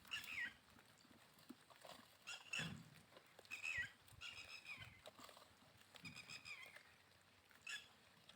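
Goats bleating: a series of short calls, about six of them, a second or two apart.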